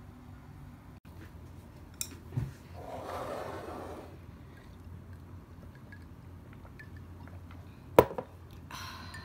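A glass of iced drink handled at a table: a light click and a low knock about two seconds in, a short liquid swish about a second later, and a sharp knock of the glass about eight seconds in.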